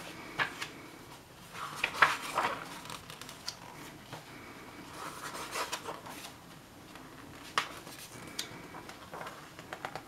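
Pages of a glossy paperback booklet being turned and flipped by hand: bursts of paper rustling and flapping, loudest about two seconds in, again around five to six seconds, then a few single page flaps.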